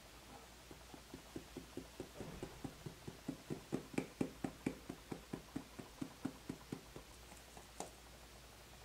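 Stainless steel mesh sieve being tapped to sift cake flour and baking powder into a glass bowl: a run of light, even taps, about five a second, growing louder toward the middle and then fading, with one last tap near the end.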